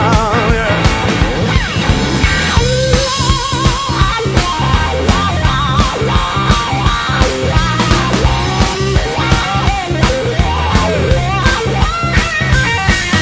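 Rock music with a drum kit, bass and electric guitar and a steady beat.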